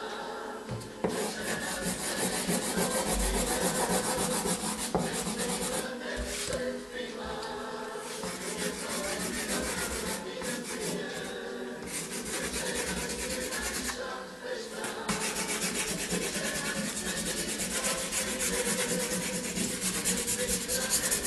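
Dry pastel stick rubbing and scratching across paper in rapid strokes. It starts about a second in and has a few short breaks.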